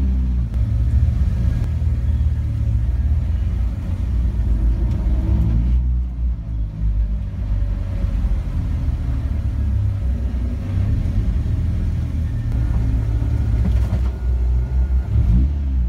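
Car engine running, heard from inside the moving car's cabin as a steady low rumble, with the revs rising and falling a few times.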